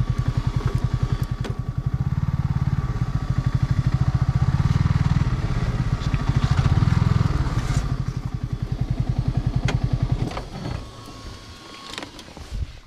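Yamaha motorcycle engine running with a rapid, even low pulse as the bike is ridden slowly, swelling briefly about two and seven seconds in, then cutting out about ten seconds in, followed by a couple of clicks.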